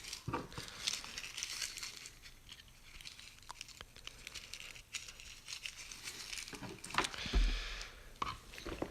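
Thin newsprint paper scraps being crumpled and rustled in short, scattered bursts, busiest about two-thirds of the way through, with a dull thump near the end.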